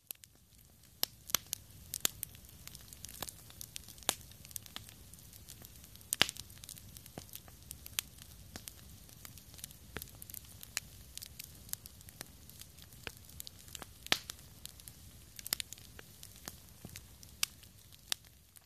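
Wood campfire crackling: irregular sharp pops and snaps, several a second, over a soft steady hiss of burning.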